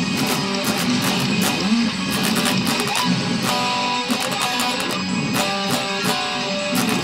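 Extended-range electric guitar playing a fast, intricate progressive-metal part. About three and a half seconds in, several higher notes ring out and are held over the low picking.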